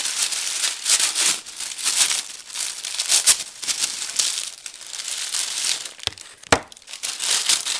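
Paper wrapping being handled and unwrapped, crinkling and rustling almost without a break. Two sharp clicks near the end, the second the loudest sound in the stretch.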